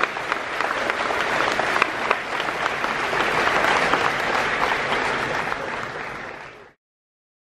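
Crowd applauding, a dense patter of many hands clapping that fades near the end and then cuts off suddenly.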